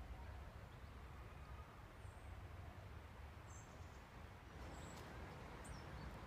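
Faint outdoor ambience: a steady low rumble with a few brief, faint high bird chirps in the second half.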